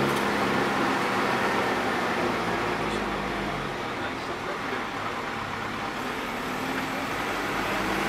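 Vehicle driving along a gravel road: steady engine hum with tyre and road noise.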